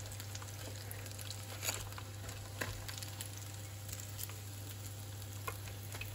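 Breaded chicken drumsticks frying in hot oil in a pan: a steady sizzle with occasional sharp clicks and crackles.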